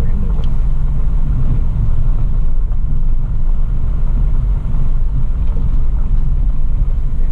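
Steady low rumble of a Toyota FJ Cruiser's engine and tyres, heard from inside the cabin while it drives along a dirt track.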